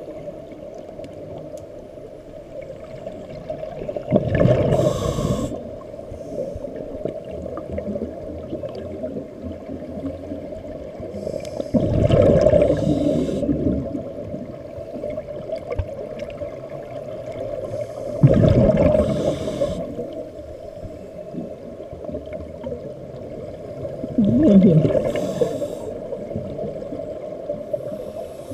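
A scuba diver's breathing heard underwater: four bursts of exhaled bubbles from the regulator, about every six seconds, each lasting a second or so. Between them is a steady low hum.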